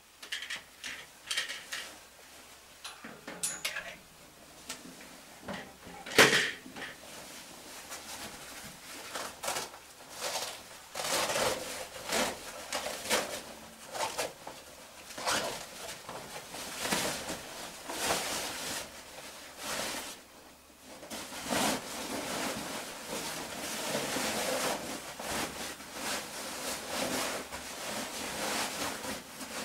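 Fabric rustling, rubbing and scraping as a caver pulls off her caving oversuit, in irregular bursts, with a single sharp knock about six seconds in.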